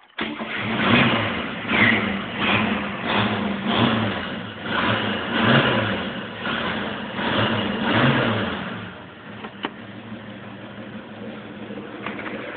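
Chevrolet Opala engine starting abruptly and being blipped repeatedly, about one rev every two-thirds of a second, on a cold morning warm-up. About nine seconds in it settles into a steady idle.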